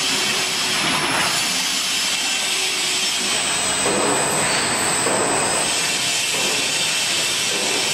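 LZ-1500L open dual shaft mixer running: the anchor agitator and disperser motors give a steady loud noise, mixed with liquid churning and splashing in the stainless steel vessel. A high whine joins in for a few seconds in the middle.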